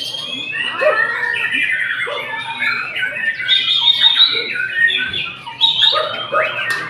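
White-rumped shamas (murai batu) singing in competition: many overlapping loud whistles, trills and quick rising and falling calls.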